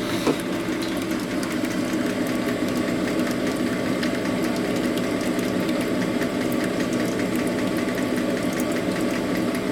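Bench honing machine running steadily, a constant motor drone with no change in speed.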